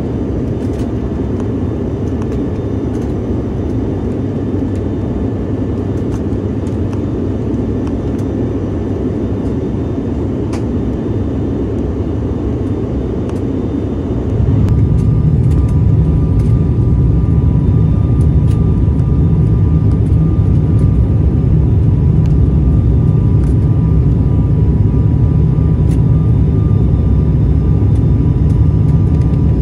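Airliner cabin noise in flight: a steady rumble and rush of engines and airflow heard from a window seat. About halfway through it abruptly gets louder and deeper, with a faint steady whine added.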